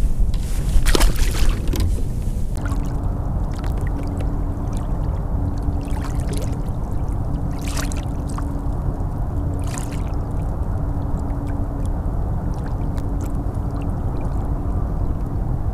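Newport Vessels NK-180S electric kayak motor running at a slow trolling speed: a steady low hum comes in about two and a half seconds in, over water rushing and lapping along the kayak hull. A short splash comes about a second in.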